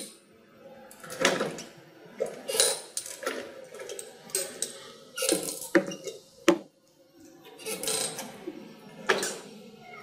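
Irregular clicks and clatter from a joystick being pushed and released to move through the pages of a speech-generating device, a sharp click about six and a half seconds in.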